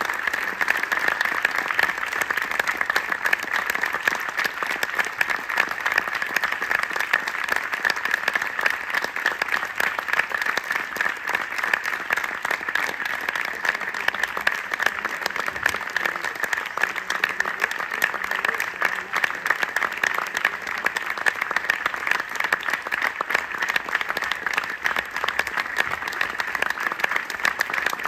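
A theatre audience applauding steadily, many hands clapping at once in a dense, unbroken patter.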